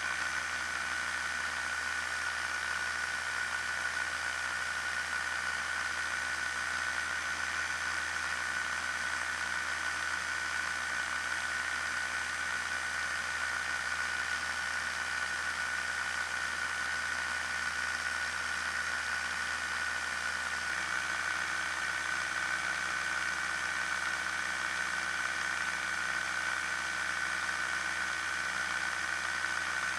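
Challenger II ultralight's pusher engine and propeller running steadily in flight, a constant high-pitched drone.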